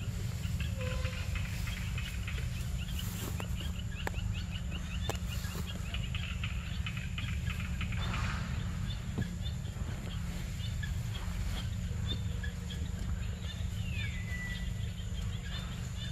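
Outdoor forest ambience: birds chirping, with a quick run of repeated chirps in the first half and one falling whistle near the end. Underneath are a steady high insect-like whine and a low rumble.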